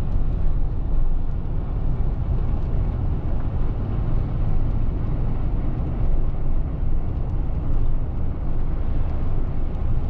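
Steady road and engine noise inside a moving vehicle's cabin, with tyres running on a wet road.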